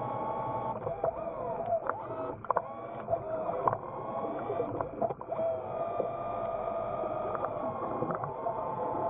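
Underwater, the electric thrusters of an ROV whine steadily, their pitch sliding up and down as they speed up and slow down, with scattered sharp clicks in the first half.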